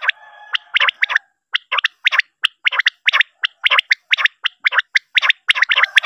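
Common quail calling: sharp, rasping notes repeated several times a second in quick groups, with a steady buzzy tone behind them for about the first second.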